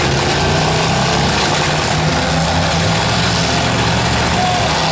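Demolition-derby pickup truck engines running steadily at low revs, an even rumble with no crashes.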